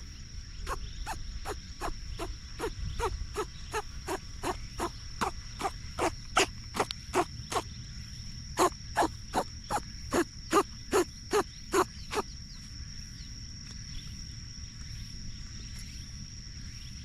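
A rabbit sneezing in a rapid series, about three sneezes a second, for some twelve seconds before the sneezing stops.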